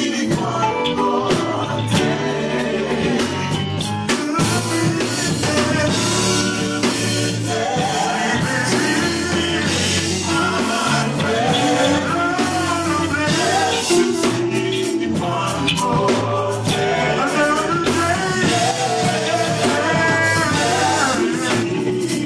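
A song with a lead vocal over a rock band: drum kit and guitar.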